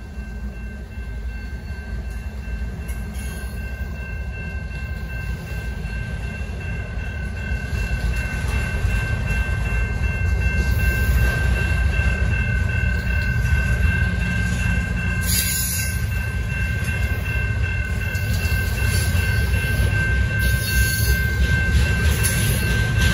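Double-stack intermodal freight train passing a grade crossing: the last lead diesel locomotive gives way to container well cars, their wheels rumbling and clacking over the rails and growing louder. The crossing signal's bell rings steadily throughout, and there are two brief high screeches, about 15 and 20 seconds in.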